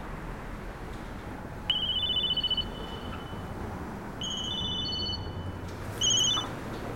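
Mobile phone alert: a short electronic melody of stepped, trilling beeps, sounding three times, with the first the loudest.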